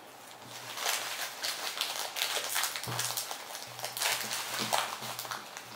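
Hands rubbing and brushing against each other, a run of quick scratchy swishes, as a child wipes wafer crumbs off his fingers.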